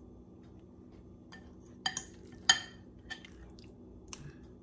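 Kitchen dishes clinking as raw chicken breasts are handled in a glass baking dish. A few sharp clinks start about two seconds in, the loudest about half a second later.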